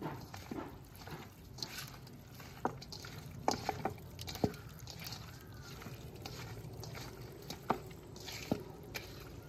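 A hand squishing and kneading raw chicken pieces with yogurt and spice powders in a stainless-steel bowl, a wet squelching marinade mix, with a few sharp clicks now and then.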